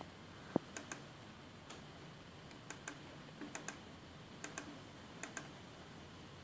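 Faint computer mouse clicks, mostly in quick pairs a fraction of a second apart, coming every second or so as stars are filled with yellow in a paint program.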